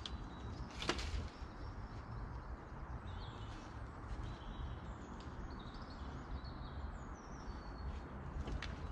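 Small birds chirping and whistling in short high notes, mostly in the latter half, over a steady low rumble. A single sharp click sounds about a second in.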